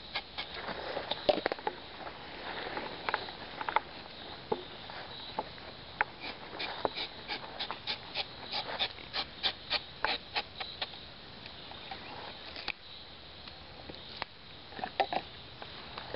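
Rubber-tapping knife scraping along the bark of a rubber tree, shaving a thin strip from the tapping cut in many short, sharp strokes, at times about three a second.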